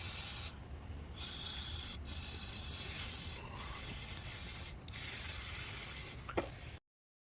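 Aerosol brake parts cleaner spraying in several long hissing bursts with short breaks between them, washing oil and dirt off an intake air temperature sensor. It stops abruptly near the end.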